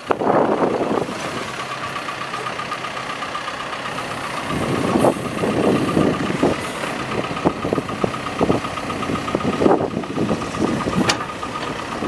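Cat 420F backhoe loader's diesel engine running while the backhoe boom and extendahoe are worked, with a steady high whine over the engine. The sound gets louder and more uneven about four and a half seconds in.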